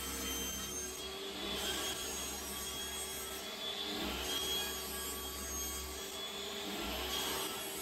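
Table saw running and ripping thin strips off a board, the cut swelling and easing every couple of seconds as each pass is pushed through the blade.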